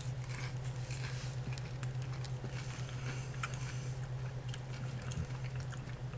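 A person chewing popcorn: faint, scattered crunches and small clicks over a steady low hum.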